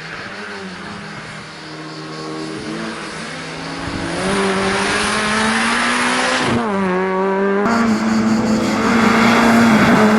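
Competition car's engine running hard under load, its pitch climbing, then dropping sharply for a moment about six and a half seconds in as the driver lifts or changes gear, then climbing again. It grows louder toward the end.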